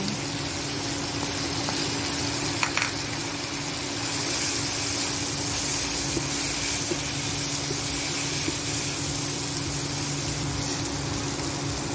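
Chicken, vegetables and egg sizzling in a nonstick frying pan as they are stir-fried, with a spatula stirring through them. The sizzle grows a little louder about four seconds in, over a steady low hum.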